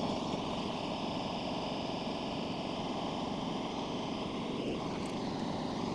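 Gas weed-burner torch burning, its flame giving a steady hiss that holds at one level throughout.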